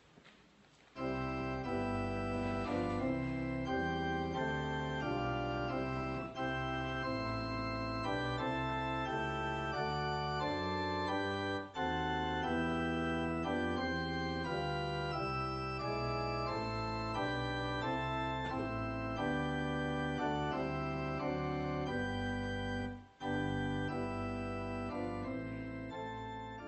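Organ music playing slow sustained chords, starting about a second in, with two brief breaks between phrases and fading out near the end.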